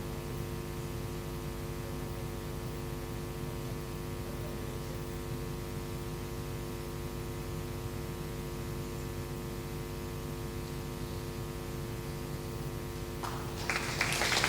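Steady electrical hum from a public-address system, several steady tones stacked together. Near the end a louder rush of noise comes in.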